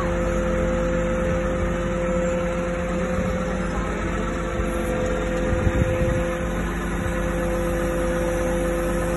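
Mobile crane's engine running steadily during a lift, a constant whine over a low rumble.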